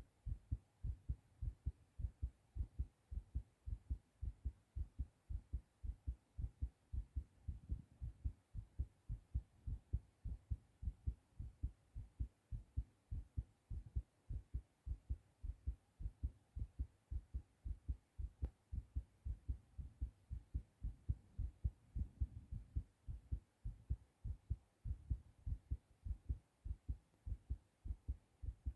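A man's heartbeat, fast after a bout of coughing: quick, regular low thumps.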